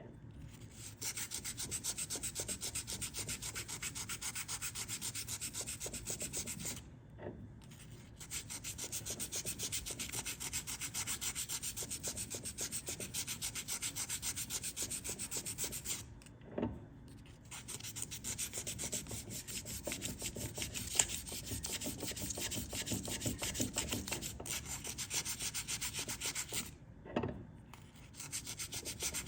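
Hand wet-sanding of a cured JB Weld epoxy patch on an outboard propeller shaft's seal surface with 800-grit wet/dry sandpaper and soapy water. The paper makes rapid back-and-forth rubbing strokes as the patch is feathered flush with the shaft, and it stops briefly three times.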